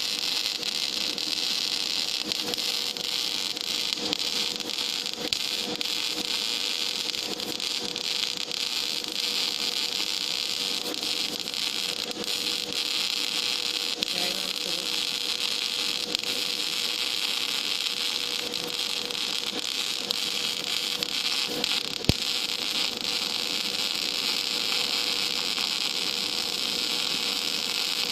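Gas metal arc (MIG) welding arc on steel plate, burning steadily with an even hiss and fine crackle.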